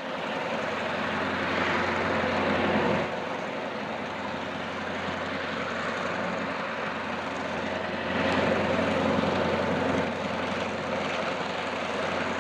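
EMD GP38-2 diesel-electric locomotive's 16-cylinder two-stroke 645 engine running as it pulls a string of covered hoppers at close range. It gets louder about two seconds in and again about eight seconds in.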